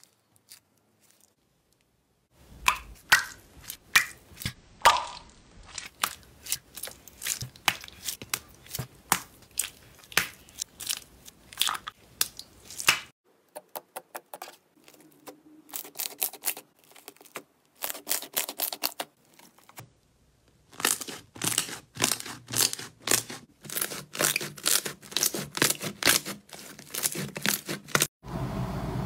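Hands squeezing, pressing and folding slime, giving quick runs of sharp, sticky pops and crackles, broken by a couple of short pauses.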